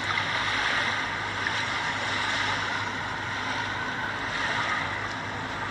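Steady wash of shallow sea water and surf on a tidal beach: an even hiss with no distinct breaks, over a faint low hum.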